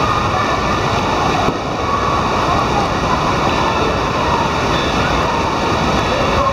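Steady wash of water noise in an indoor water-park pool, from running and splashing water, with faint voices of other swimmers mixed in.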